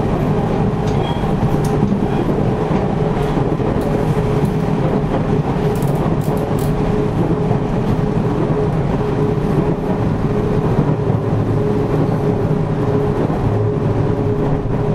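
JR Central 313 series 8000-subseries electric train running, heard inside the car end of motor car KuMoHa 313-8502: a continuous rumble of wheels on rail with a steady hum.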